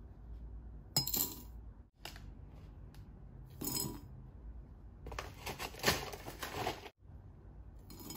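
Granola clusters tipped from a metal spoon into a glass mug, rattling against the glass with small clinks of spoon and glass, in several short bursts, the longest about five seconds in.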